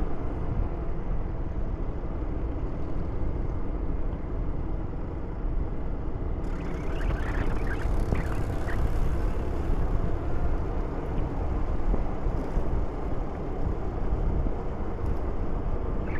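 Steady low rumble of a vehicle running, with fainter higher sounds joining from about six seconds in.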